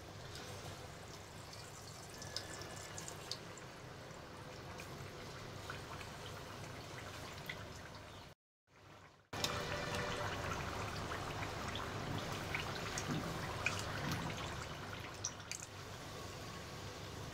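Battered potato slices deep-frying in hot oil: steady sizzling and bubbling with scattered crackles. It cuts out for about a second near the middle and comes back louder.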